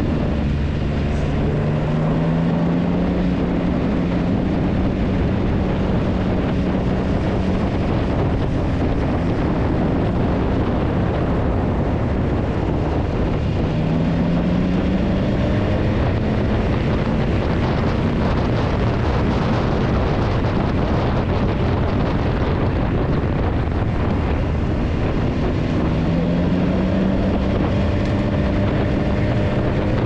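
Motorcycle engine running under way, its note rising three times as it accelerates, with wind noise on the microphone throughout.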